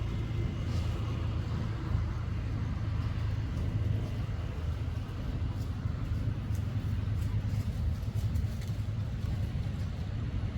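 A steady low rumble with a few faint scattered ticks.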